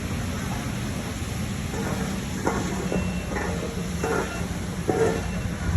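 Steady low rumble of a fire engine's diesel running at the fire scene, with distant voices calling out now and then from about two seconds in.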